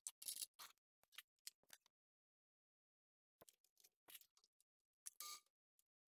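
Scattered light metallic clicks and clinks as drill bits are handled and swapped in a milling machine's drill chuck, with a quiet pause in the middle.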